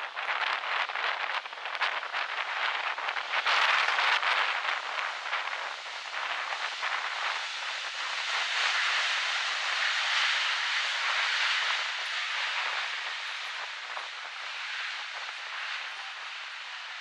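Boeing 777 freighter's GE90 jet engines during the landing roll: a steady rushing jet noise that swells about four seconds in and again around the middle, then eases off toward the end.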